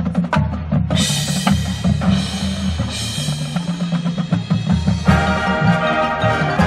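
High school marching band playing its show music: held chords over strong low notes and a drumline, with loud bright swells about one, two and three seconds in and a new held chord from about five seconds in.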